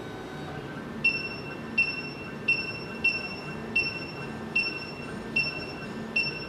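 SEC-E9 key machine decoding an original Toyota key. A steady motor hum runs throughout, and from about a second in, short high-pitched chirps repeat evenly about every three-quarters of a second as the decoder works along the key.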